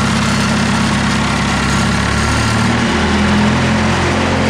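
A large wood chipper's engine running steadily, its note shifting in pitch about three seconds in.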